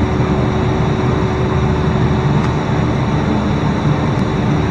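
Steady low drone of a ship's engines and deck machinery, with a constant hum held on one pitch.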